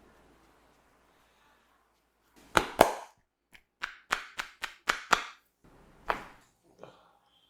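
A run of about ten sharp cracks from a barber's hands working on the head during a head massage. The two loudest come close together about two and a half seconds in, a quicker series follows at roughly three to four a second, then two more spaced out near the end, after a faint rustling at the start.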